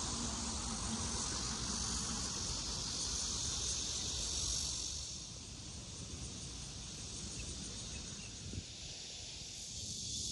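Insects chirring in a steady, high, even hiss, louder for the first half and softer after, over a low rumble.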